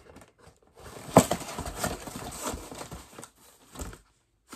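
A boxed appliance being handled: a sharp knock about a second in, then scraping and rustling of cardboard and packaging, and a softer thump near the end.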